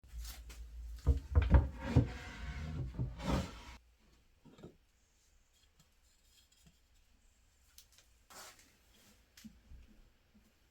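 Irregular knocks and scraping for about the first four seconds, then quiet with a few faint clicks and one short scrape.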